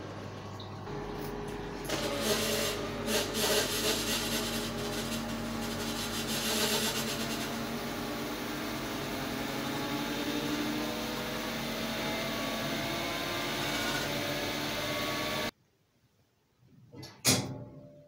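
AEG Lavalux twin tub washing machine running a wash. Its motor hum comes in about a second in, then the pulsator disc churns and sloshes the soapy water in the copper washtub steadily. The sound cuts off suddenly about two-thirds of the way through, followed by a few clicks and a sharp knock near the end.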